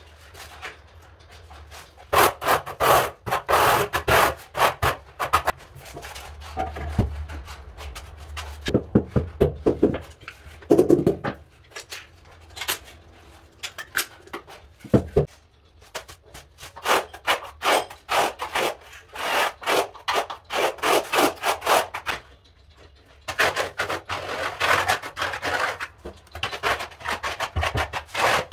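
Steel trowel scraping tile adhesive in quick repeated strokes, in runs of several seconds, spreading and back-buttering mortar for ceramic tiles. A few dull knocks fall in the middle.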